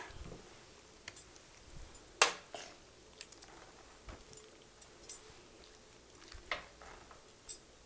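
Metal serving spoon scraping and clinking against a stainless steel sauté pan and plate while food is dished out: a few sparse clinks, the loudest about two seconds in.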